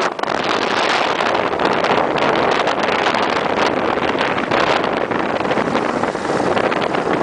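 Wind buffeting the microphone in a moving open beach buggy: a loud, gusty rush with the buggy's running noise underneath.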